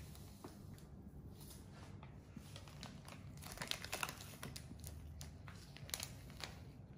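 Salt being poured from a plastic bag into a measuring jug: faint crinkling of the bag and the rustle of salt grains, busiest about halfway through.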